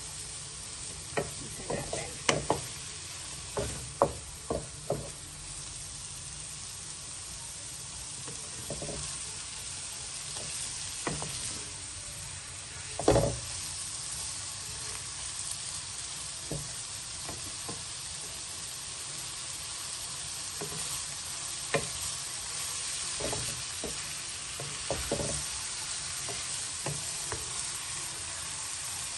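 Shredded chicken, carrots and celery sizzling in a nonstick wok while a wooden spatula stirs and scrapes through them. Sharp knocks of the spatula against the pan come in a run over the first few seconds and now and then after, the loudest about 13 seconds in.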